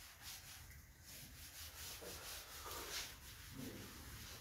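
Board duster rubbed back and forth over a chalkboard, wiping off chalk: quiet, uneven swishing strokes.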